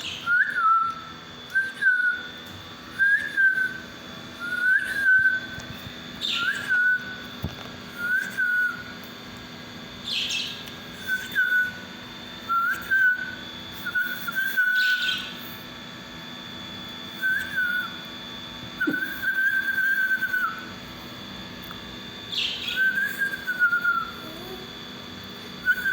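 Pet parakeets calling: a string of short whistled notes, one every second or so, with a few sharper, higher chirps among them.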